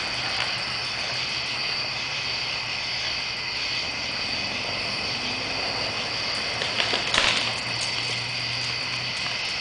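Steady, continuous chirring of night insects such as crickets, with a few sharp clicks about seven seconds in.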